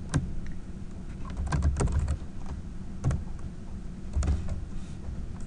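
Typing on a computer keyboard: a handful of separate keystrokes, with a quick run of them about one and a half seconds in.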